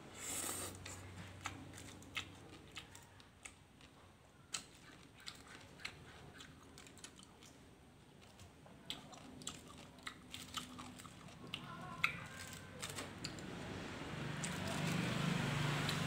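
A person chewing and biting into crunchy papaya salad with chili, a scatter of short crisp crunches and mouth clicks. The chewing grows louder near the end.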